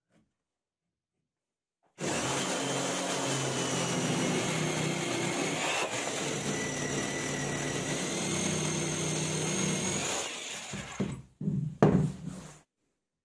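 Electric saw running and cutting through a wooden board, a steady motor sound with a high whine, winding down about ten seconds in. A few sharp knocks of wood being handled follow, the loudest near the end.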